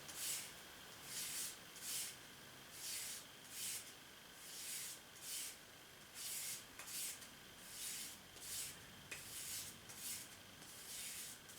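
Knife blade drawn again and again across a sharpening surface, a soft rasping stroke about every 0.8 seconds, about fourteen strokes in all; the strokes are working the burr off the edge.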